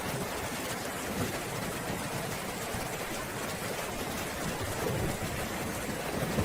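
Steady rain falling, with a low rumble of thunder swelling near the end.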